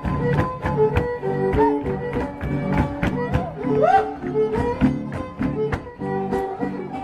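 Live huasteco string music: a violin plays the melody over guitar chords strummed in a quick, steady rhythm.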